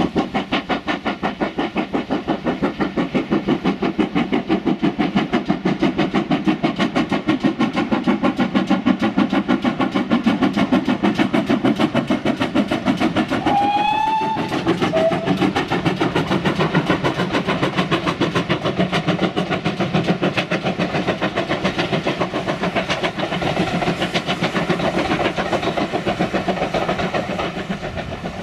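Steam locomotive working hard past with a train of coaches: rapid, even exhaust beats. About halfway through there are two short whistle blasts, the first sliding up in pitch. The beats fade a little near the end as the train draws away.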